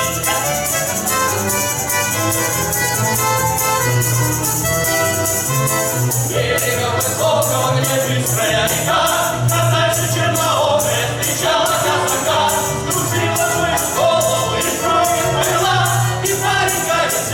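Cossack folk song ensemble performing. An instrumental introduction gives way, about six seconds in, to voices singing together over a steady jingling percussion beat.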